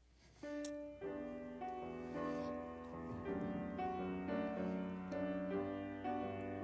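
Piano playing slow chords, starting about half a second in.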